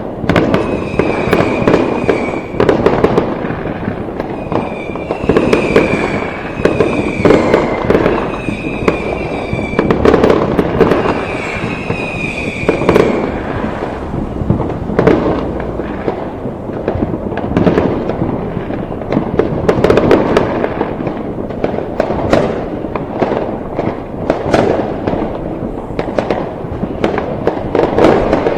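Fireworks going off continuously: a dense, unbroken crackle of bangs and pops. Through the first half a high whistle-like tone comes back about once a second over the crackle.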